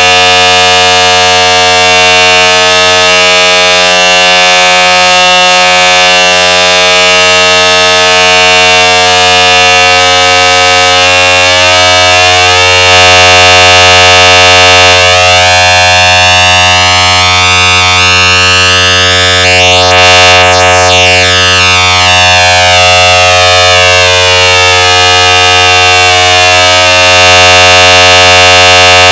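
Very loud, distorted electronic alarm tone in the style of an Emergency Alert System alert, boosted for an 'I need louder' edit: a dense buzzing stack of steady tones. From about a third of the way in, sweeping tones rise and fall across it, crossing in the middle.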